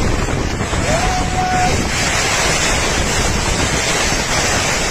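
Strong storm wind and rain buffeting a canopy tent, heard as a loud, steady rush with heavy wind noise on the phone's microphone.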